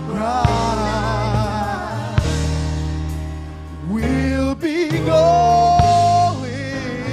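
Gospel music: a singer with vibrato over instrumental backing with a steady bass line, holding a long note about five seconds in.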